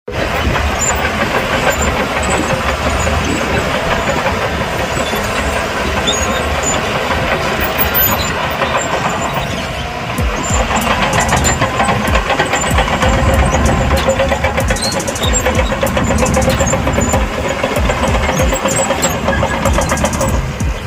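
Shantui crawler bulldozer's diesel engine running hard while pushing sand, getting a little louder, with a steady whine, from about halfway through.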